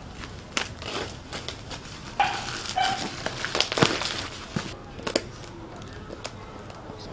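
Plastic parcel wrapping crinkling and tearing as it is cut with scissors and pulled off a cardboard box, then a knife slitting the box's packing tape; irregular rustles and sharp clicks, busiest in the middle.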